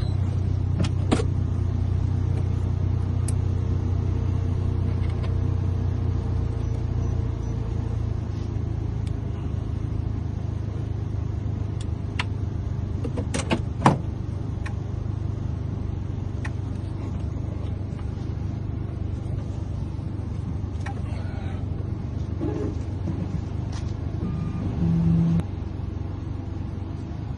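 A motor vehicle's engine running steadily with a low drone, with a few sharp clicks and knocks about 12 to 14 seconds in.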